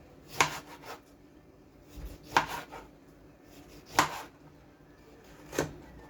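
A knife cutting a lemon into pieces on a cutting board: four separate cuts, each a sharp knock, about one every one and a half seconds.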